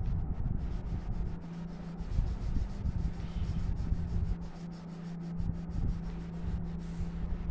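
Coloured pencil rubbing back and forth on paper in quick, scratchy shading strokes, over a steady low hum.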